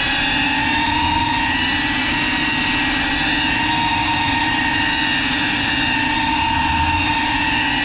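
Small FPV drone's electric motors and propellers whining steadily in flight, the pitch wavering slightly.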